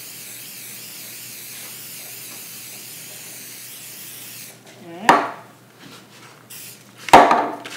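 Aerosol canola oil cooking spray hissing steadily as it greases a cake pan, stopping about four and a half seconds in. Two sudden loud sounds follow, about five and seven seconds in, the second one the loudest.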